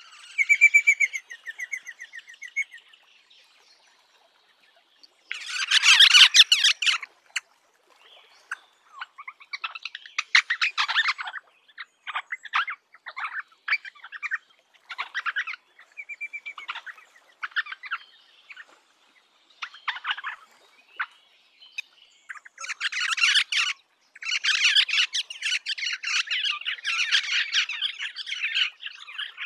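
Rosellas calling: a few clear whistled notes at the start, then harsh, chattering calls in short bursts. The loudest calls come about six seconds in and through the last several seconds.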